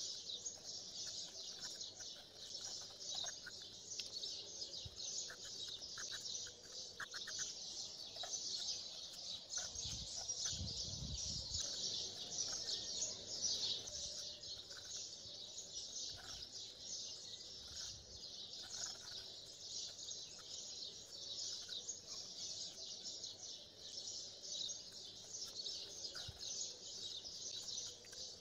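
Birds chirping in a steady, dense chorus, with a brief low rumble about ten seconds in.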